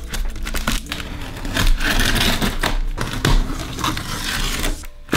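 X-Acto knife slitting the packing tape along the seam of a cardboard box: a rough, crackling scrape of blade through tape and cardboard, in uneven strokes.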